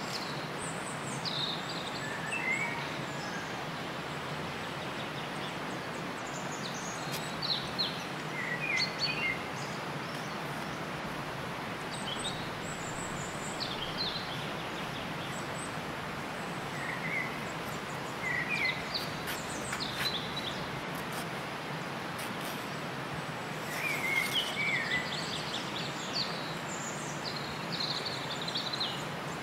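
Outdoor country ambience: a steady background hiss with birds chirping in short calls now and then, loudest about eight seconds in and again near twenty-four seconds.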